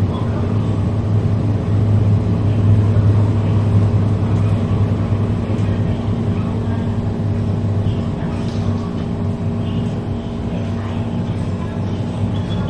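Metro Cammell 'MLR' electric multiple unit heard from inside the passenger car while running: a steady low hum of the train in motion with rumble from the wheels and track, a little quieter after about eight seconds.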